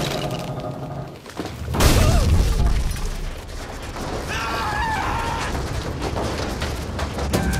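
A sudden heavy crash or boom about two seconds in, followed by a steady low rumble. A brief wavering pitched sound comes near the middle.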